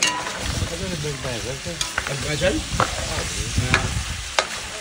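Pieces of salted pig's trotter sizzling in a large aluminium pot over a wood fire. They are stirred with a long metal spoon that scrapes and clicks against the pot now and then.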